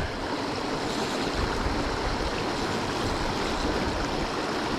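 Creek water running, a steady rush of flowing water.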